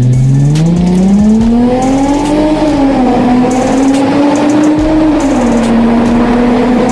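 Mercedes-Benz W203 C-Class exhaust under acceleration inside a tunnel: the engine note climbs steadily for about two and a half seconds, dips briefly, rises again, then drops after about five seconds and holds a steady drone.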